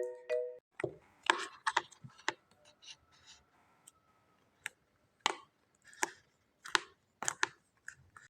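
Finished clay slime being squeezed and poked by hand, giving irregular sharp clicks and pops, a dozen or so spread through.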